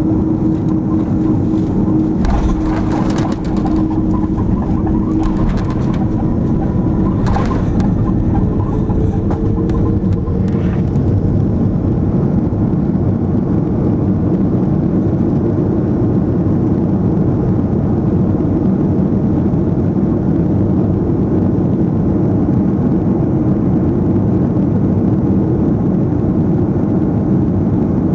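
Airbus A330 airliner touching down and rolling out on the runway, heard from the cabin: a few sharp jolts about two to three seconds in and another near seven seconds, then a steady loud rush of engine and runway noise as the aircraft slows.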